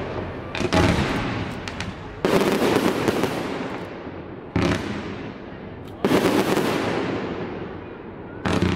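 Fireworks display: aerial shells bursting about five times, each a sudden bang followed by a fading rumble.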